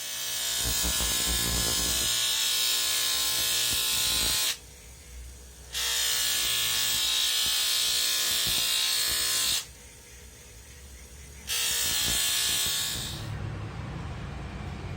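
Electric metalworking tool working steel in three runs of steady buzzing hiss, each starting and stopping abruptly, the last tapering off.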